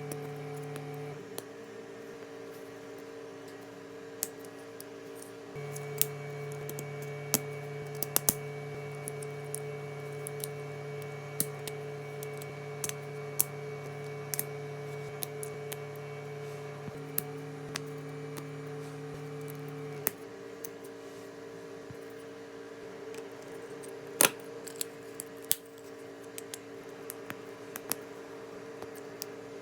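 Irregular sharp clicks and taps of plastic LEGO Technic parts and packaging being handled, some louder snaps among them, over soft sustained background tones.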